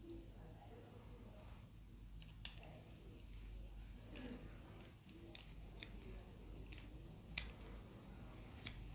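Faint clicks and ticks of a small screwdriver driving tiny screws into a 1/8-scale model car's chassis parts, with two sharper clicks, about two and a half seconds in and again about seven seconds in.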